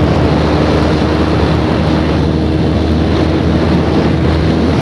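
KTM RC sport bike's single-cylinder engine running steadily at high speed, about 144 km/h, with loud wind rush over the microphone.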